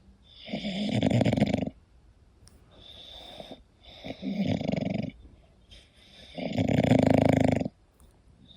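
English bulldog snoring in its sleep: three loud snores about every two to three seconds, with a softer breath between the first two.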